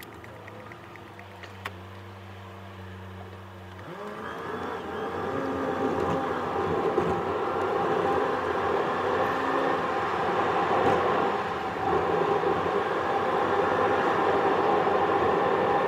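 A car's engine idling while stopped, then pulling away about four seconds in with a rising engine note and tyre and road noise that builds as it gathers speed, heard from inside the car.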